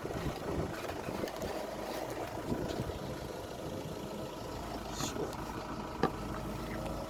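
An engine running steadily, with a couple of short sharp clicks about five and six seconds in.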